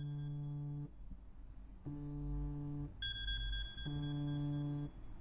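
Smartphone alarm going off: three low buzzing pulses of about a second each, about two seconds apart, with a thin high tone at the start and again about three seconds in.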